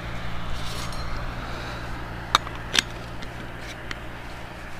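Riding a bicycle on an asphalt road: a steady rush of tyre and wind noise, with two sharp clicks about half a second apart a little past the middle.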